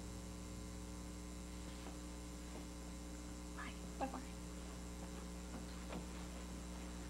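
Steady electrical mains hum, with one brief faint sound about four seconds in.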